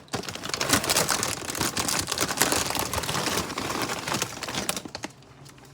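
Crinkly plastic snack bag being handled, a dense crackle of small clicks that stops near the end.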